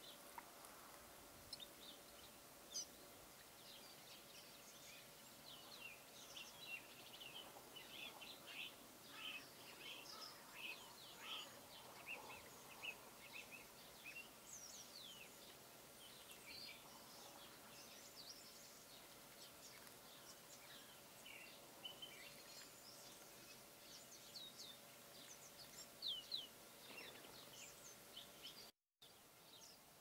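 Faint chirping and twittering of small songbirds: many short, high calls, densest in the first half, over a faint steady hum. The sound cuts out for a moment near the end.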